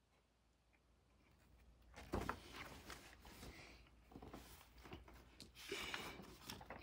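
Soft handling sounds of a large paperback picture book being lowered and its pages rustled, with one sudden rustle or knock about two seconds in and scattered quieter rustles after it.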